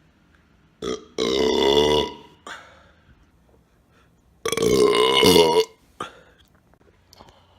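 A person belching twice, two long loud burps about three seconds apart, each lasting about a second, with a pitch that wavers.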